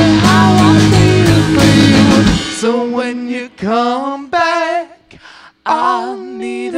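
Live band (bass guitar, electric guitar, drums) playing a groove with singing, then dropping out about two and a half seconds in. A man and a woman then sing together unaccompanied, in short phrases with brief pauses between them.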